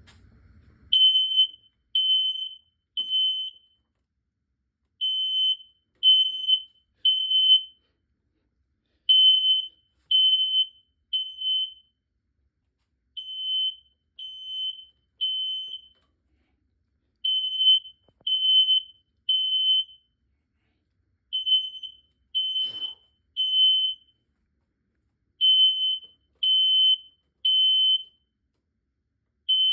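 Smoke detector sounding its alarm after being set off with aerosol test smoke. It gives a high beep in groups of three with a short pause between groups, the temporal-three alarm pattern, starting about a second in.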